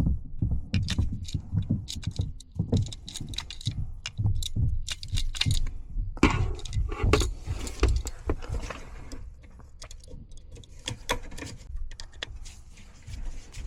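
Metal jingling and clinking, like keys or tools, over rustling and dull thumps of someone moving about, busier at first and quieter for the last few seconds.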